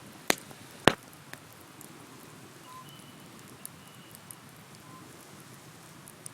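Wood bonfire crackling: two sharp pops in the first second, then light scattered crackles over a soft steady hiss.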